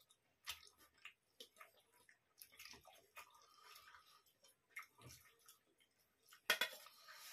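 Quiet eating sounds: chewing, lip smacks and fingers squishing rice and chicken curry on steel plates, with scattered soft clicks and one louder clatter near the end.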